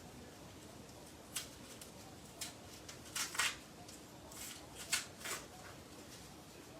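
A handful of short, sharp rustles and scrapes, about seven over a few seconds, from hair and a wig being handled.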